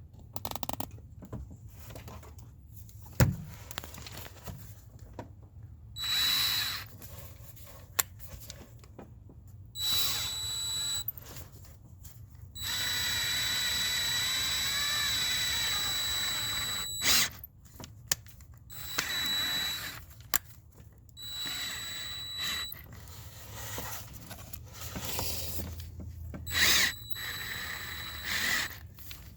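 Power drill running in short bursts and one longer steady run of about four seconds, with a high motor whine. It is driving a Helicoil thread-insert tool into a stripped 6 mm intake-manifold bolt hole in the engine block. A sharp click sounds about three seconds in.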